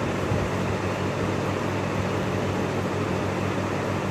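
A steady low machine hum with a constant hiss, unchanging throughout.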